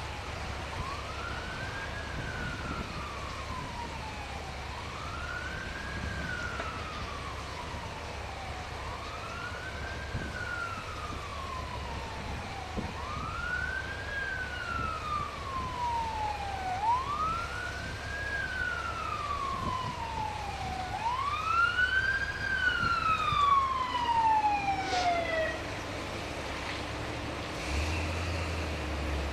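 A siren wailing, its pitch climbing quickly and then sliding slowly down, about every four seconds, six times over, before stopping about 25 seconds in. A steady low rumble runs underneath.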